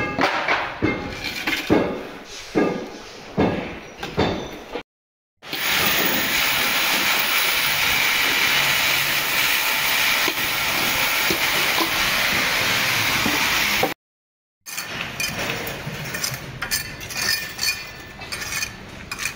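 Sharp metallic clinks and knocks of work on a construction site, then a steady loud hiss for about eight seconds, then more clinks and scraping.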